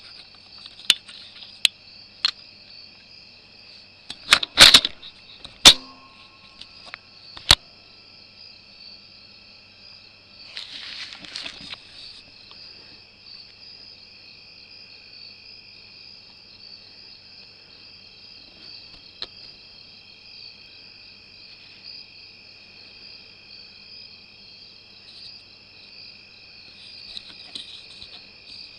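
Steady chorus of night insects calling in several high, unbroken tones. Several sharp clicks and knocks come in the first eight seconds, the loudest a cluster about four and a half seconds in, and a brief rustle follows around ten to twelve seconds.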